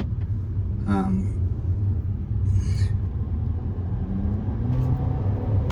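Turbocharged Audi A4 2.0T four-cylinder engine pulling under load with a steady low rumble, its pitch rising near the end as it accelerates. It runs smoothly with no misfire, now on fresh Eldor coils and one-step-colder NGK plugs.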